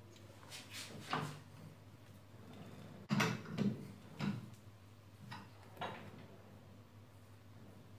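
A lathe's four-jaw chuck being turned by hand in short pushes, with a series of knocks and clunks from the chuck and spindle, loudest a little after three seconds in. A faint steady hum runs underneath.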